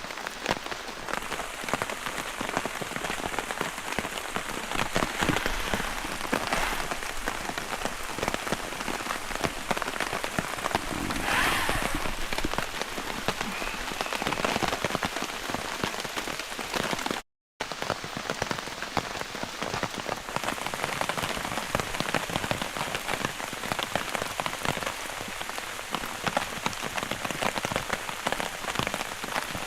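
Steady, heavy rain drumming on a tarp shelter, a dense patter of many drops with no letup. There is a split-second dropout about 17 seconds in.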